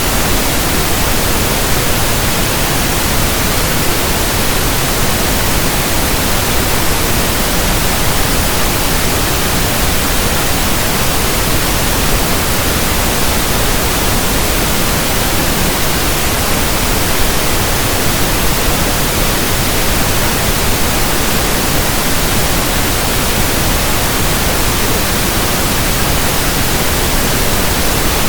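Steady pink noise: an even, unchanging hiss spread from deep rumble to high treble.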